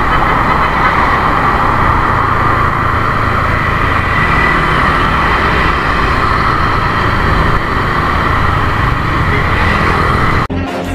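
Steady riding noise from a motor scooter moving through traffic, its engine running under tyre and wind noise, as picked up by an action camera mounted on the handlebars. It cuts off abruptly near the end, giving way to pop music.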